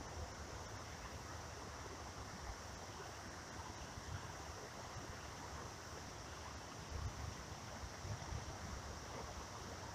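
Faint outdoor creek ambience: a steady wash of moving water with wind rumbling on the microphone and a steady high hiss above it.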